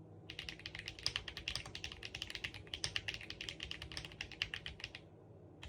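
Fast typing on an SPM AL66A mechanical keyboard with HMX Martini switches, a quick run of clacky keystrokes that stops about five seconds in.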